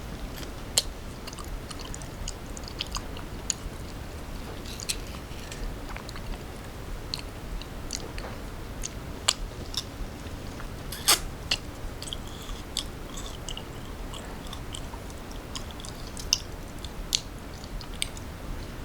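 Close-miked chewing of a red ruby dessert (tub tim krob), with crisp crunches and wet clicks from the water-chestnut rubies. The clicks come at irregular moments, with a few louder ones about a second in, around the middle and near the end.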